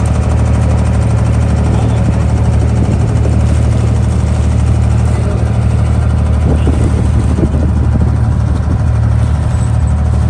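Engine of a wooden abra water taxi, a diesel, running steadily under way: a loud, even low drone.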